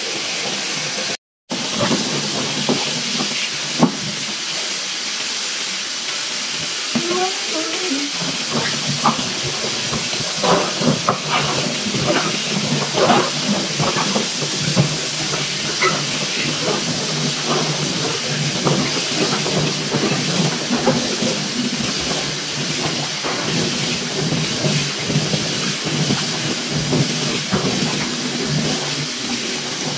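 Tap water running steadily into a plastic basin of water. From about eight seconds in, hands stir and rub a basin full of small green plums, with splashing and the fruit clicking and knocking together.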